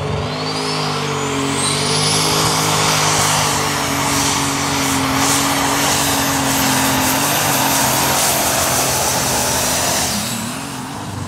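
A Super Stock pulling tractor's turbocharged diesel engine runs at full power under load down the pulling track. A high whistle rises over the first two seconds, and the engine note drops away near the end as the pull finishes.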